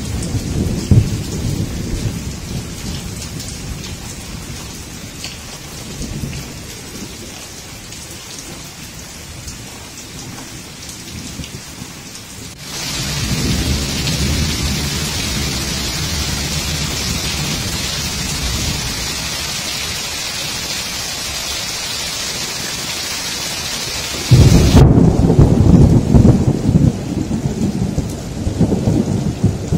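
Heavy rain pouring down and running off a roof edge, with thunder rumbling at the start and fading away. About halfway through, the rain's hiss gets abruptly louder. Near the end a loud clap of thunder breaks in and rumbles on.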